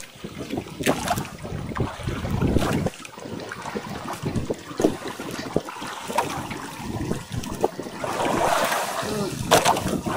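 Water sloshing around a small fishing boat, with irregular knocks and rustles as fishing line and gear are handled on board.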